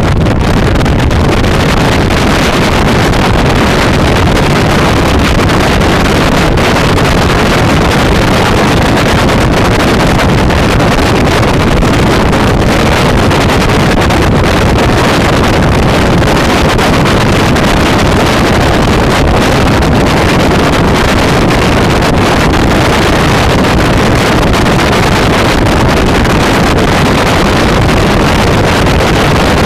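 Heavy wind noise buffeting the microphone while riding a Kymco Xciting 400i maxi-scooter at speed, loud and steady throughout. The scooter's engine and road noise run underneath.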